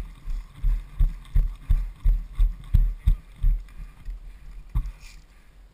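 Running footsteps on dry desert ground, heard as dull thuds through a body-worn camera at about three steps a second. They slow and stop about three and a half seconds in, and a short click follows near the end.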